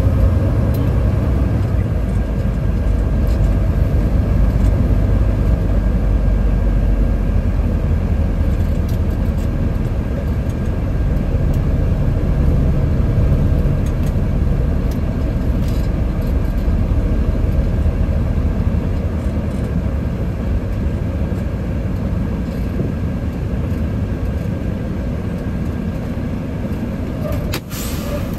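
Semi truck's diesel engine and road noise heard inside the cab while driving: a steady, heavy low rumble that swells and eases with the engine's load, with a couple of faint clicks.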